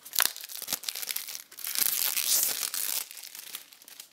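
Clear plastic shrink wrap being torn open and peeled off a CD jewel case: crinkling and crackling at first, then a steady tearing about halfway through that fades out near the end.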